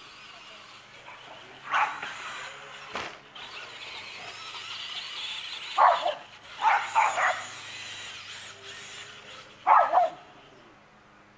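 A dog barking as it chases a radio-controlled car: about six sharp barks, including three quick ones in a row in the middle.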